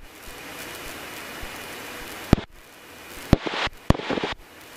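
Steady hiss of a Cessna 150's cockpit intercom and radio audio feed, with a sharp click about two seconds in where the hiss drops away. Near the end come a few short clipped clicks and fragments, and the hiss cuts out again.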